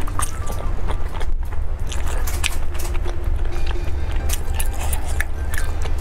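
Close-miked biting and chewing of a wrapped parcel of spicy noodles, with many small wet, sticky mouth clicks. A steady low hum runs underneath.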